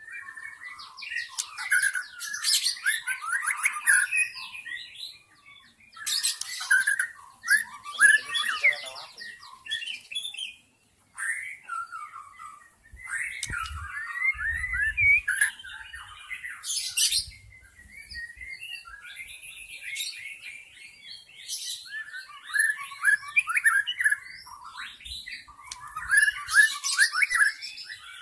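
White-rumped shama (murai batu) singing a forest lure song: fast, varied whistled phrases mixed with harsh, buzzy notes, delivered in bursts with short pauses between them. A few low thumps come midway.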